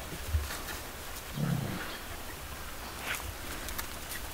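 A small Welsh corgi–spitz mix dog gives one short, low growl about a second and a half in, a warning at another dog coming up to greet it.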